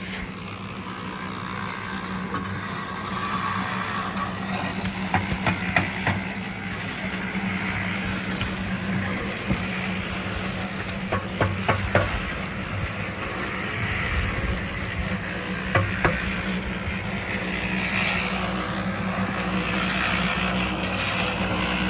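A motor running steadily with a low hum, with scattered sharp knocks of construction work a few times along the way.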